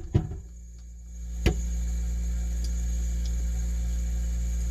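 Refrigerator running: a steady low electrical hum that swells up about a second in and then holds level, with a single click about one and a half seconds in.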